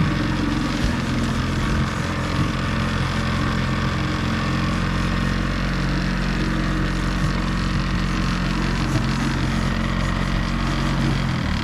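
A boat engine running steadily with an even low hum over a constant hiss. The low hum drops away just before the end.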